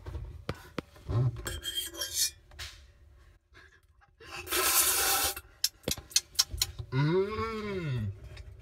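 Handling noise inside a metal tumble dryer drum: rubbing and scraping, a burst of hiss about four seconds in and a quick run of sharp clicks. Near the end a voice gives a drawn-out 'ooh', rising then falling in pitch.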